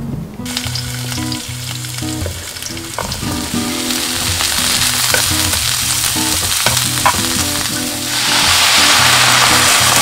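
Vienna sausages, onion and zucchini sizzling as they fry in a hot frying pan, stirred with a spatula that knocks against the pan now and then. Near the end, water poured into the hot pan turns the sizzle into a louder, steady hiss.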